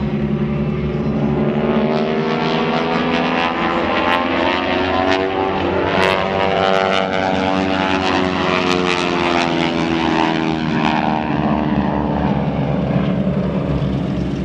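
Propeller airplane flying past, its engine drone steady and loud, with the pitch of its tones bending up and then down as it passes.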